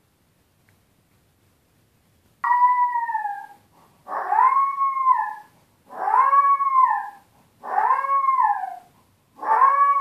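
Puppy crying while left alone: after a couple of seconds of quiet, five long drawn-out wails in a row, each rising and then falling in pitch. The crying is separation distress.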